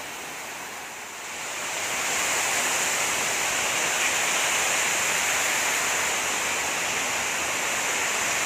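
Waterfall cascading over a rock wall into a pool, a steady rushing splash that grows louder about a second and a half in.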